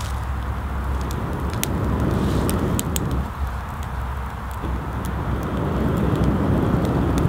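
A small twig-and-birch-bark fire being blown on to bring up the flame: two long breaths, the first about two seconds in and the second from about five seconds in to the end, with the kindling crackling and popping in sharp clicks.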